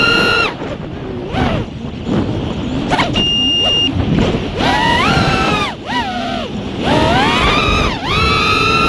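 Brushless motors and 5-inch three-blade propellers of an FPV freestyle quadcopter whining. The pitch drops away as the throttle comes off about half a second in, then climbs in surges around five and seven seconds in and holds high near the end. A short steady high tone sounds about three seconds in.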